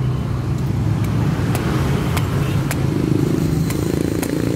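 Steady low hum of a running motor-vehicle engine, with short sharp knocks roughly every half second.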